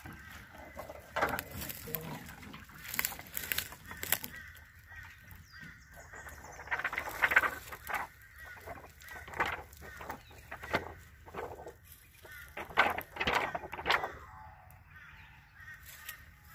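Knocks and rustles of lumps of sticky stingless-bee brood comb being handled and set into a wooden hive box, with repeated honking calls from a bird mixed in.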